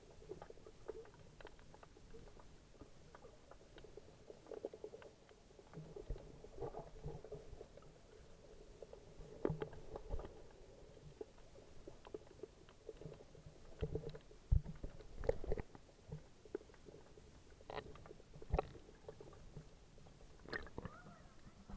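Muffled underwater sound heard through an SJ4000 action camera's waterproof housing: a low dull sloshing with many scattered small clicks, and a few louder sharp knocks in the second half.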